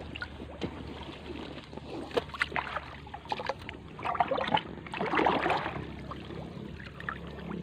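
Water splashing and dripping as a wet cast net is handled and lifted out of a pond, with many small clicks. It is loudest for a stretch from about four to five and a half seconds in.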